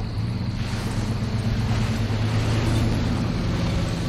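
Truck engine running with a steady low rumble, growing louder toward the middle as the truck drives off, with a hiss of road noise over it.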